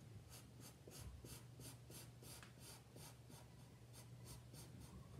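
Felt-tip marker scratching on paper, faint and rhythmic, in short quick strokes about three a second as shading is drawn along the letters' edges.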